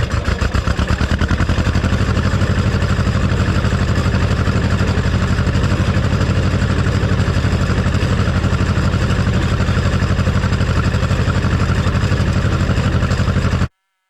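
Vehicle engine running steadily at a fairly constant speed, with an even, rapid throb. It cuts off abruptly near the end.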